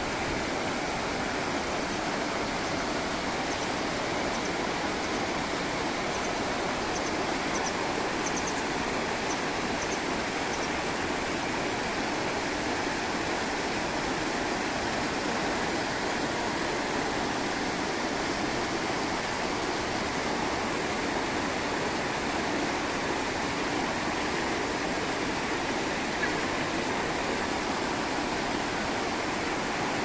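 Steady rush of the Harajiri Falls: river water pouring over a broad rock ledge and plunging into the pool below.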